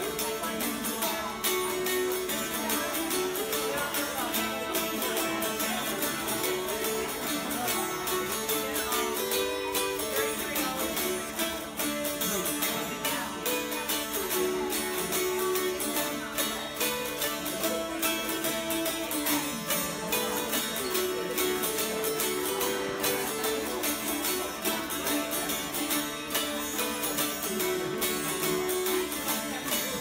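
A group of mountain dulcimers strummed together in unison, playing an old-time reel with a steady, even strum.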